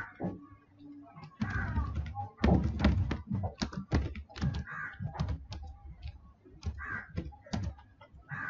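Typing on a computer keyboard: a run of quick, irregular key clicks, with a few dull thumps in the first few seconds.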